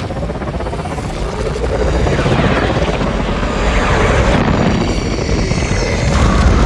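Custom kaiju roar sound effect layered from Godzilla roars, tiger and dinosaur calls: one long, rough, rumbling roar that builds slightly in loudness, with higher screeching tones joining in from about four seconds.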